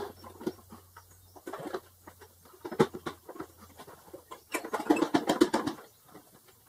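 Rubber air-intake snorkel being twisted and pulled by hand off the carburetor throat of a Honda Recon 250 ATV: a run of short, irregular rubbing and clicking handling noises, busiest about two-thirds of the way through.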